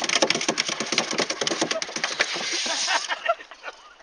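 Yorkshire terrier puppy's claws scrabbling on a plastic slide: a dense run of rapid scratchy clicks that thins out and fades after about three seconds.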